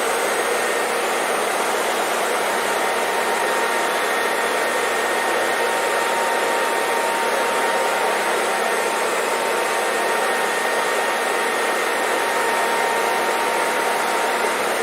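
Hair dryer blowing steadily, an even rushing noise with a faint whine from its motor, used as white noise to lull a baby to sleep.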